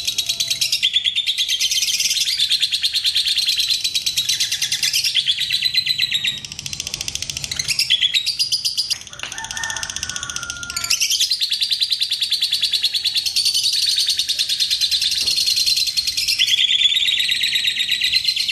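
Fischer's lovebirds giving long, rapid-fire chattering trills, the 'ngekek' song, high-pitched and almost unbroken, with a short break about halfway through.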